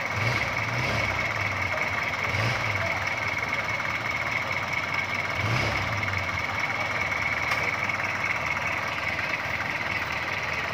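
Willys-type jeep's engine running at idle in gear as the driverless jeep creeps along on its own, a steady low hum that swells briefly a few times.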